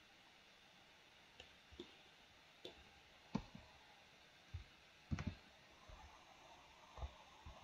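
Faint computer mouse and keyboard clicks, several short sharp clicks at irregular intervals, made while working in a 3D modelling program.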